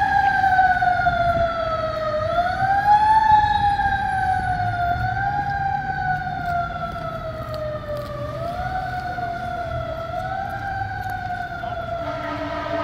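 Fire engine siren wailing: the pitch slides slowly down and then swoops quickly back up, four times over. It grows fainter as the 2009 KME pumper moves away.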